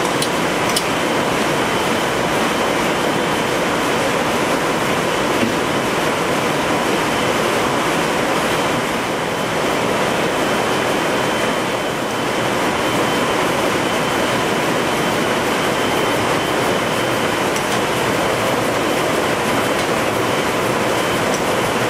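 Steady machine din of a weaving floor with looms running: a dense, even rush carrying a few faint steady tones.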